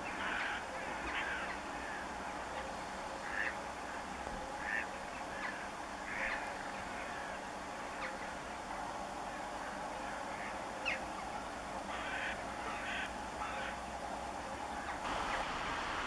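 Waterbirds giving short, scattered calls at irregular intervals, a few of them a second or so apart, over a steady background hum.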